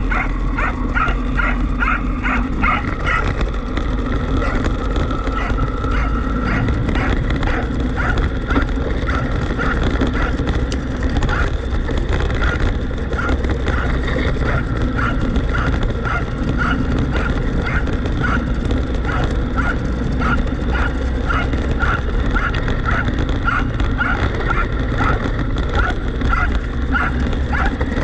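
Welsh corgi barking over and over while running alongside, about two short barks a second, over a steady low rumble from the camera-carrying RC car driving across the dirt.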